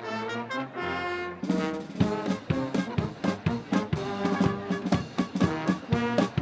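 A brass band playing a march-show tune, with trombones and trumpets on short repeated chords. About a second and a half in, the drums come in and keep a steady beat under the brass.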